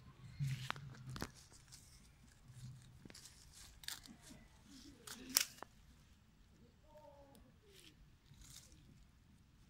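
Leaves and a thin leafy stem rustling and snapping as a baby monkey swings on it and pulls at it, with dry leaf litter crackling under it; a run of sharp crackles, the loudest about five seconds in.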